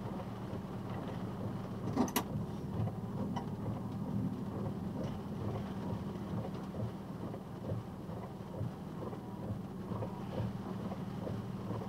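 Box truck's engine running at low speed with a steady low rumble and hum, heard from inside the cab with rain on the truck. There is a sharp click about two seconds in, and fainter ticks later.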